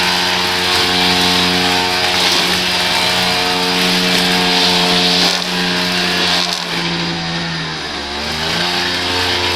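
Small petrol engine of lawn equipment running steadily at speed; about seven seconds in its speed sags, then picks back up.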